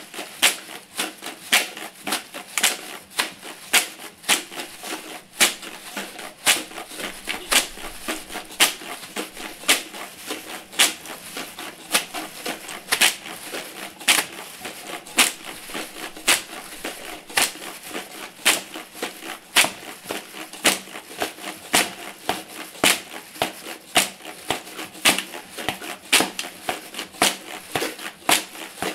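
A steady rhythmic run of sharp clicks and crinkles, a loud accent about every two seconds with lighter clicks in between: a beat built from the rustle and crunch of plastic and drink cans.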